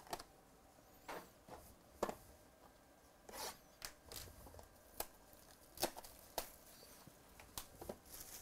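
Cardboard trading-card boxes being handled and unwrapped: an irregular string of short scrapes, rustles and taps, about a dozen, with the sharpest around two seconds in and just before six seconds.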